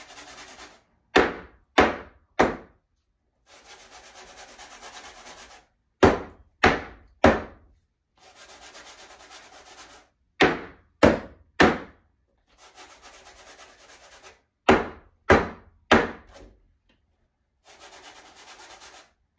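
Cake pans full of batter being slid and shaken around on a countertop with a scraping rasp, then banged down on the counter three times in quick succession, about half a second apart. The whole cycle repeats four times. This is knocking the air bubbles out of the batter before baking.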